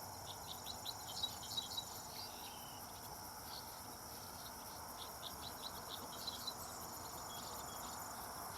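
Insects chirping faintly: a steady high trill, with runs of quick short chirps near the start and again about five to six seconds in.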